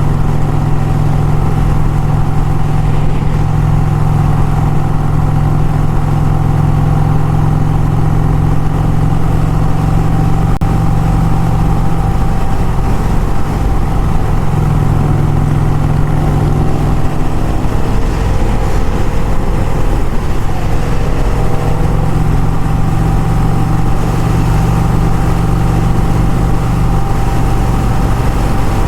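Motorcycle engine running steadily at a cruise, with road noise. Around the middle, a second engine note briefly rises and falls in pitch.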